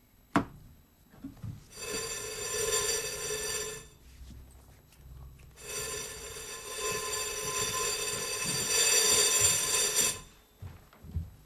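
Apartment intercom buzzer ringing twice: a ring of about two seconds, then a longer one of about four and a half seconds. A sharp knock sounds just before the first ring.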